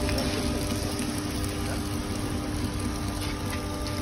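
Piston fruit press's hydraulic pump unit running with a steady hum while pressed juice pours from the spout into a plastic bucket.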